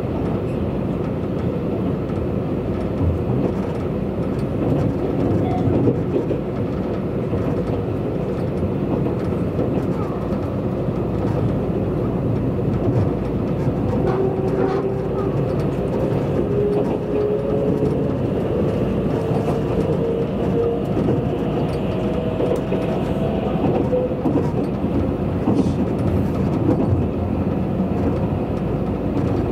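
Steady running noise heard from inside a car of a Tobu 100 series Spacia limited-express train as it travels. A faint tone slowly rises in pitch for about ten seconds past the middle.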